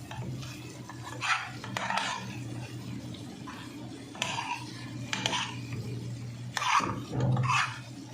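A metal spatula or spoon scraping and knocking against a cooking pan, irregularly, as chicken in an orange-juice sauce cooked down to sticky is stirred. A steady low hum runs underneath.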